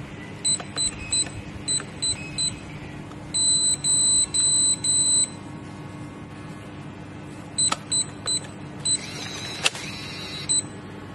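Electronic smart deadbolt keypad beeping once for each key pressed as a code is entered, then a run of longer beeps signalling that the reset has been accepted. After more key-press beeps, the lock's motor whirs with a sharp click as the deadbolt retracts to unlock, and there is a final short beep.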